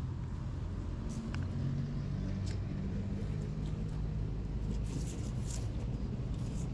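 Steady low rumble of a motor vehicle running, with an engine hum and a few faint clicks.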